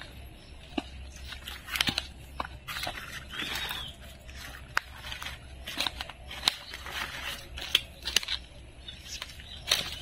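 Footsteps on dry leaves and twigs of a forest floor: irregular crackles and snaps, with a short rustle of vegetation about three and a half seconds in.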